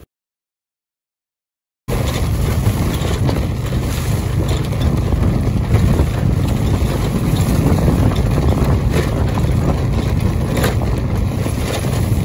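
Wind buffeting the microphone: a loud, steady, low rumbling noise that cuts in abruptly after about two seconds of dead silence, with a few faint brief rustles.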